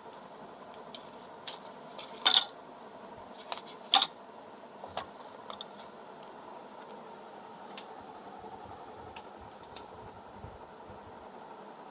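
Handling noise on a workbench: a few sharp clicks and knocks, the loudest two about two and four seconds in, over a steady faint hiss.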